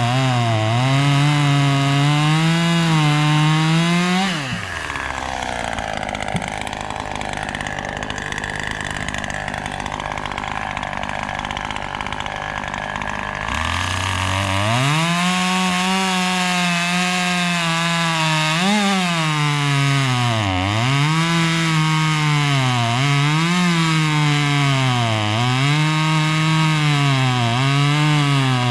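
Husqvarna 540 XP Mark III two-stroke chainsaw running at high revs and cutting wood, its pitch dipping again and again under load. About four seconds in it drops back to idle, then revs up again after about nine seconds and carries on cutting with the same repeated dips.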